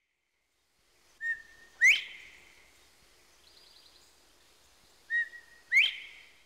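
Northern bobwhite quail whistling its two-note 'bob-white' call twice: each call is a short level whistle followed by a louder, sharply rising one. A faint high twitter of another bird comes between the two calls.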